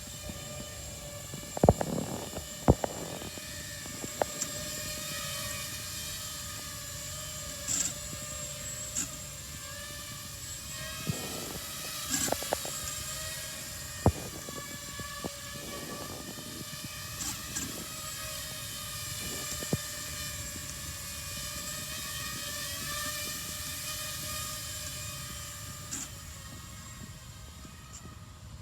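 Drone motors and propellers running with a steady whirring hum, broken by irregular sharp clicks every second or few. These are the odd noises that come with the drone's erratic movements, cause unknown.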